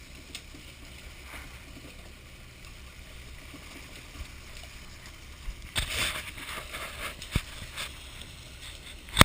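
Fishing boat running at sea: a steady low hum under water noise, with a louder rush of splashing water about six seconds in and a few sharp knocks afterwards.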